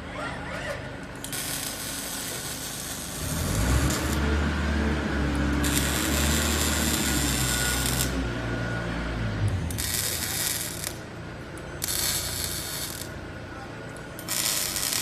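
Robotic arc welding: the arc hisses in bursts of one to three seconds with short pauses between welds, while a low machine hum that steps in pitch runs from about three to nine seconds in.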